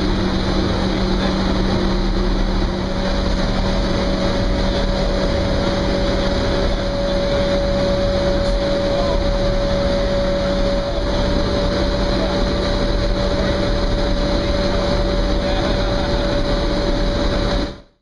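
Loud, steady machinery noise of an industrial boiler room: a large boiler plant running, with a steady low hum and a steady higher tone over the din. It cuts off abruptly near the end.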